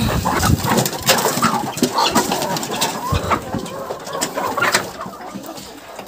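Domestic poultry clucking and calling at feeding time, with many short taps and clicks among the calls. The sounds thin out near the end.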